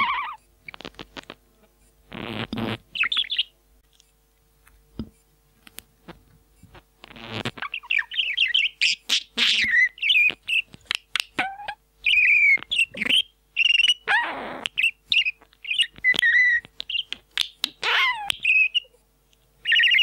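Pet parrot whistling and chirping close to a microphone in short, quick notes, with a few harsher rasping calls between them; the whistles come thickest in the second half.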